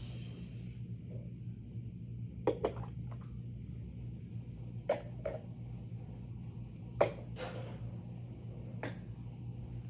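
Several sharp clicks and taps, some in pairs, as small blocks are set on top of upturned plastic cups, the loudest about seven seconds in, over a steady low hum.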